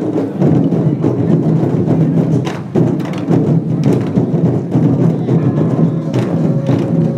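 Lion dance percussion ensemble playing: a drum struck continuously, with gongs and cymbals crashing in between.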